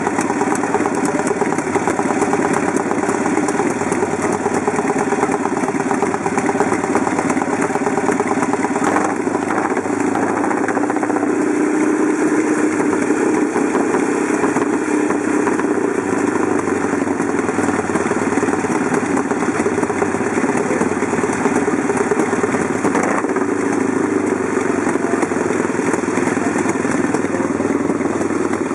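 Several vintage motorcycle engines idling together at the start line, a steady, loud mechanical running with no pauses.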